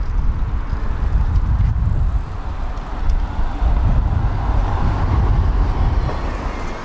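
Road traffic on a city street, a steady low rumble with a passing vehicle swelling and fading about two-thirds of the way through.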